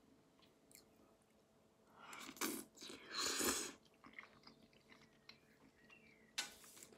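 A person eating noodles close to the microphone: two short noisy mouthfuls about two and three seconds in, then soft chewing clicks and one more short mouthful near the end.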